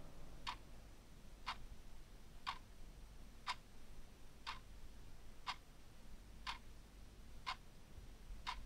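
Clock ticking faintly and evenly, about one tick a second.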